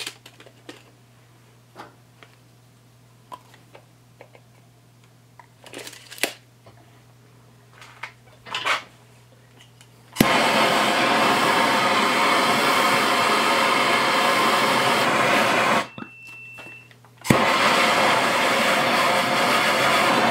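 A few light handling clicks, then, about ten seconds in, a hand-held MAPP gas torch lights and its flame runs with a steady hiss as it heats a 5/8-inch steel threaded rod for bending. Near the end the hiss cuts off for about a second and a half, then starts again.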